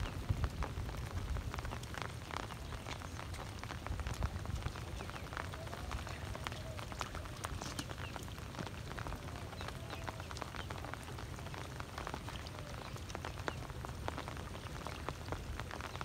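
Light rain pattering on shallow floodwater: a steady hiss full of small drop ticks, with wind rumbling on the microphone.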